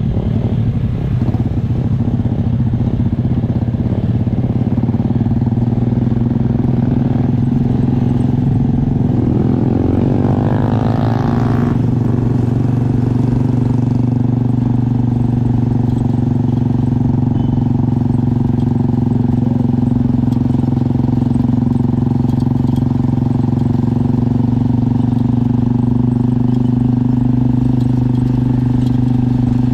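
Motorcycle engine running steadily while riding, with a rising whine about ten seconds in.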